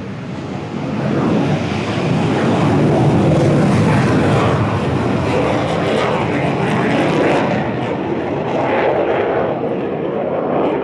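Aircraft engines running loud nearby, swelling about a second in and holding steady before easing slightly near the end.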